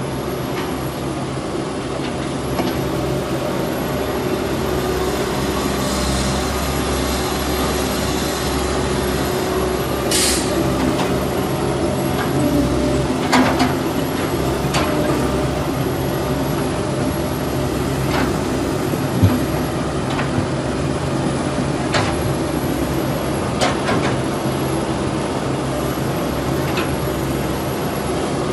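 Heavy diesel machinery running steadily, an excavator at work loading trucks, with a short hiss about ten seconds in and several sharp metallic clanks later on.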